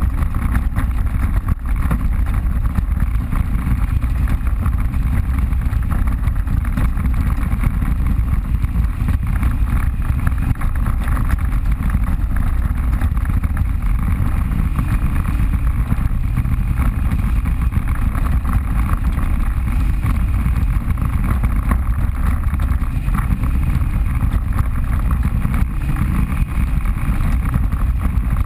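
Off-road vehicle engine running steadily on a trail ride, a continuous loud mechanical drone with no clear revving.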